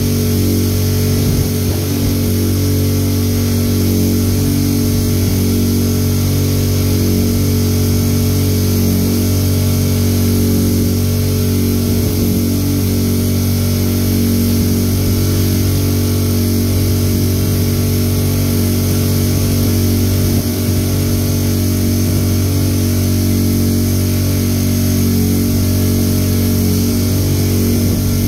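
Strong wind of about 60 km/h buffeting the microphone: a loud, steady low rumble.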